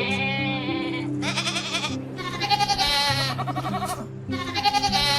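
Goat bleating three times, the long middle bleat quavering.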